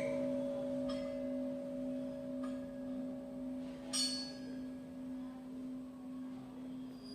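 A 125 kg temple bell's hum dying away after a strike, two steady tones slowly fading. A few faint taps sound over it, the sharpest about four seconds in.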